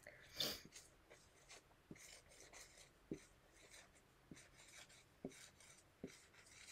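Faint scratching of a marker pen writing a word on a small handheld whiteboard, with a few light taps between strokes.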